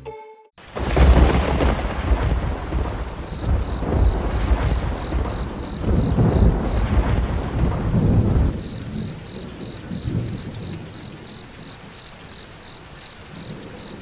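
Rolling thunder over steady rain. The rumble is loud for about eight seconds and then dies away, leaving the hiss of rain, while a high chirp pulses about three times a second throughout.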